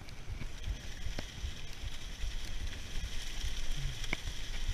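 Mountain bike riding fast down a wet, leaf-covered dirt trail: tyres rolling over leaves and dirt with a steady hiss, the bike knocking and rattling over bumps, and wind rumbling on the bike-mounted microphone.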